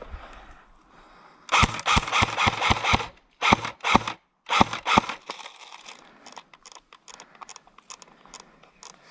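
Airsoft guns firing: a quick string of loud shots at about five a second, then two short bursts, followed by scattered fainter shots.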